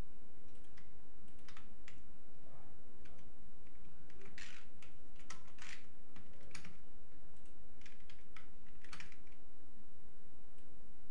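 Computer keyboard keystrokes in irregular clicks, some louder than others, over a steady background hum.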